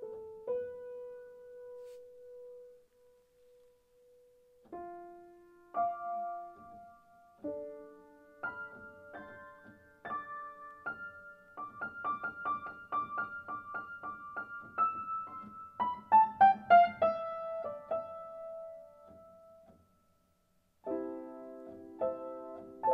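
Background piano music: slow single notes, then a stretch of quick repeated notes and a falling run, a brief pause about twenty seconds in, then held chords.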